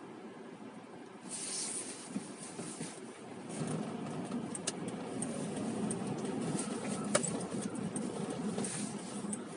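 City street traffic noise: a steady rumble of passing vehicles that grows louder about three and a half seconds in, with a few sharp clicks, the loudest about seven seconds in.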